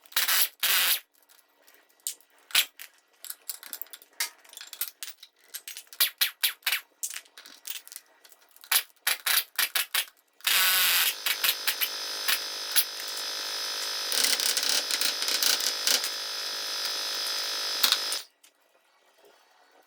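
Tool work on a truck steering knuckle: a run of sharp clicks and metal knocks, then a power tool runs steadily for about eight seconds from about halfway and stops abruptly.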